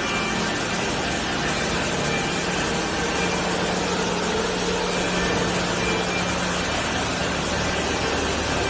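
Steady machine-shop din from running CNC machining centres: a broad hiss over a low hum, the hum dropping lower about two-thirds of the way through.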